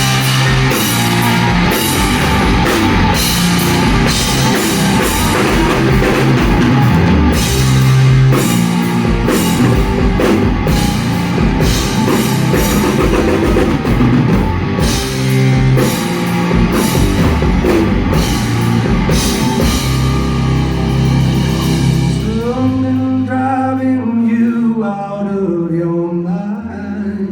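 Live rock band playing the instrumental intro, with heavy drum kit, bass and electric guitar. About 22 seconds in the drums drop out, leaving a held bass note under a bending melodic line.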